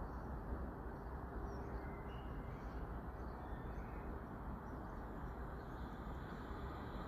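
Steady low outdoor background rumble with faint, scattered bird chirps; near the end a high hiss begins to build as a distant train approaches.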